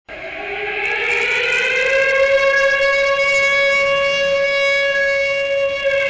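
Siren sounding to open a memorial ceremony. One loud wailing tone starts abruptly, climbs in pitch over the first two seconds, then holds steady.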